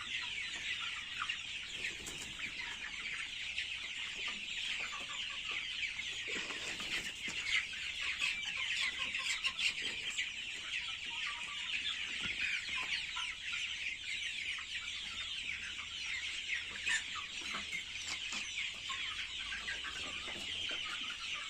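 A flock of young country chickens peeping and clucking all together in a dense, continuous chatter.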